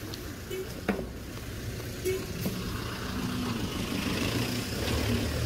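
A vehicle engine running amid outdoor street noise, a low steady rumble that grows louder toward the end. A couple of sharp clicks come about a second in.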